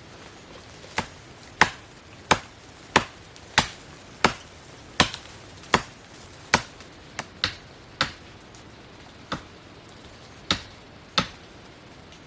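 Repeated chopping strikes, about fifteen sharp blows at a steady pace of roughly one every two-thirds of a second, coming more slowly near the end.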